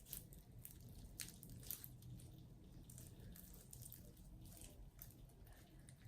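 Faint squishes and small clicks, scattered irregularly, from sticky slime being kneaded and pulled by hand as borax activator is worked through it.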